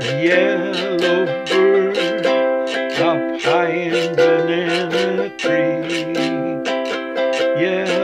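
Ukulele strummed in a steady rhythm, with a man singing a slow melody over it.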